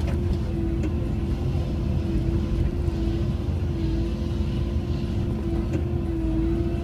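Cat 312E excavator running steadily under work, a low diesel drone with a constant whine on top, while its tree shear is swung and closed around a trunk.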